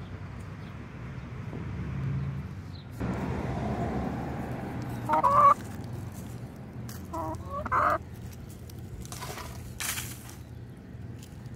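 Backyard hen clucking: one loud call about five seconds in, then a short run of two or three clucks around seven to eight seconds, with a brief burst of noise near the end.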